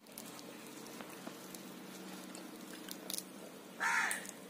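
A crow cawing once about four seconds in, over a steady low hum.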